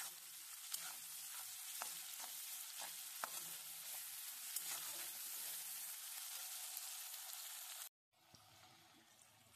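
Sliced onions sizzling in hot oil in a metal kadai, stirred with a flat metal spatula that scrapes and taps against the pan. About eight seconds in the sound cuts out abruptly, then comes back as a fainter sizzle.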